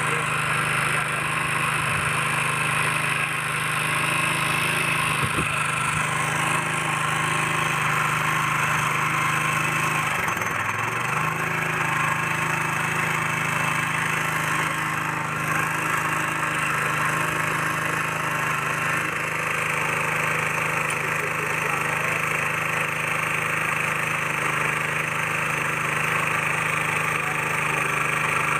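Small petrol engine of a power weeder (mini tiller) idling steadily, having started on the first pull after standing unused for five to six months. Its hum dips briefly about ten seconds in, then steadies again.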